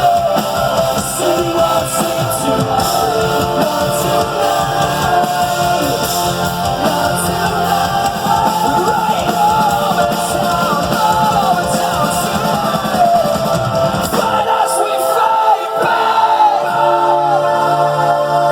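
Live rock band playing with voices singing. About fourteen seconds in, the drums and bass drop away, leaving held notes and the singing.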